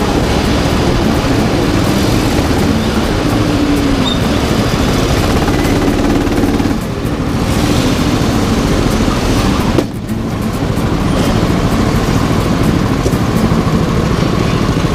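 Go-kart engine running under way, heard from the driver's seat, with a steady dense drone that dips briefly twice, about a third and two thirds of the way through.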